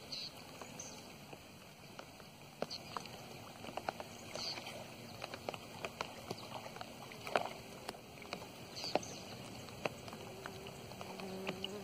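Faint sloshing and splashing of pond water with scattered small clicks, as a man wading knee-deep jerks a bamboo fishing rod up to hook tilapia. A few short bird chirps are heard throughout.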